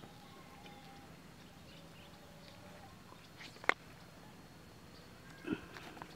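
Quiet background with a few short, sharp taps or clicks: a loud one about three and a half seconds in and a softer one near the end.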